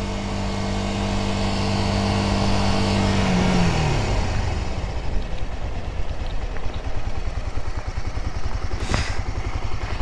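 Honda Dominator 250cc single-cylinder motorcycle engine, heard from the rider's seat, running at a steady cruise with wind noise. About three and a half seconds in, the throttle closes and the engine note falls to a low, pulsing chug as the bike slows and pulls over. A single sharp click comes near the end.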